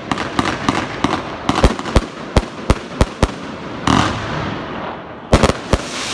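Gemstone "Bullfighter" firework firing aerial shots: a rapid, uneven run of sharp bangs as the shells burst. A hissing crackle comes about four seconds in, then three more bangs in quick succession near the end.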